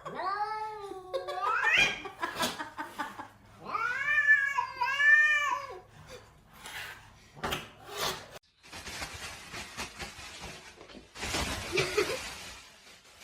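Domestic cat meowing in three long, drawn-out calls: the first wavers and rises sharply at its end, and the next two come close together about four seconds in. A few sharp knocks and a long stretch of hissy noise follow.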